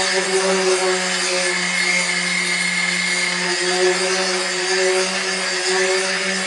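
Handheld electric sander running steadily while being worked over a bus roof to sand it back: a constant motor hum with a gritty rubbing noise over it.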